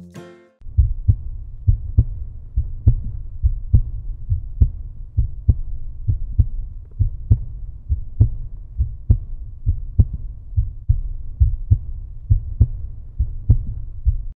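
Outro music: a deep bass line over a steady, even drum beat, ending abruptly.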